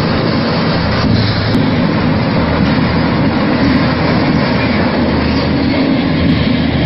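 Large trailer-mounted industrial wood chipper running while chipping wood into chips, a loud, steady machine drone with a low hum.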